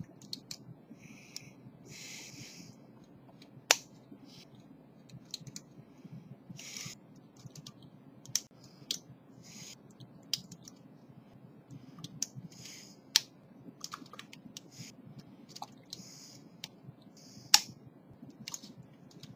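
Hand dental scaler clicking and scraping against a lower molar inside the mouth: faint, irregular sharp clicks, the loudest about 4 seconds in and near the end, with short wet hissing sounds between them.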